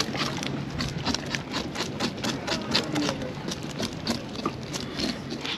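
Fish scales being scraped off in quick, even rasping strokes, about three a second, over a steady low engine hum.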